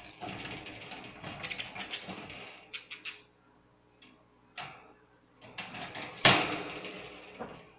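Clicks and rattling of a budgie's cage being handled to take the bird out: a busy stretch of rattling for about three seconds, then scattered clicks, and one loud knock about six seconds in.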